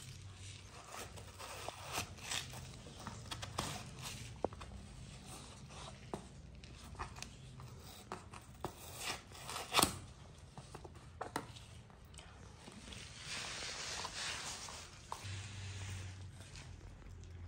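Wet crunching and tearing of watermelon flesh as a baby monkey bites into it, and a kitchen knife slicing through watermelon on a wooden cutting board. Scattered small clicks throughout, with one sharp knock about ten seconds in.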